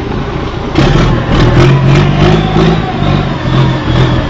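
Boat engine running, getting louder about a second in.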